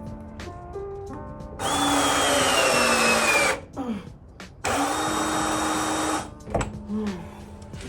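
A small power tool motor runs twice, about two seconds and then a second and a half, its pitch falling during the first run and holding steady in the second. Background music plays throughout.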